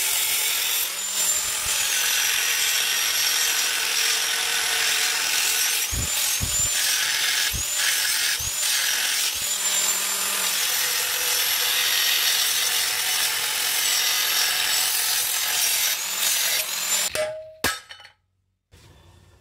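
Angle grinder with an abrasive cut-off disc cutting into a rusty square steel tube, a loud harsh grinding with a high whine that dips and recovers several times as the disc bites. It stops about seventeen seconds in.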